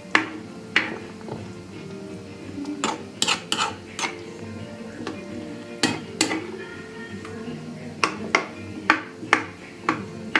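A metal utensil clinking and scraping against a cooking pot, a dozen or so sharp, irregular knocks, over steady background music.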